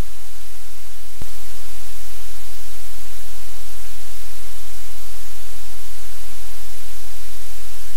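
Loud steady hiss like static, with a sharp click about a second in, after which the hiss gets slightly louder.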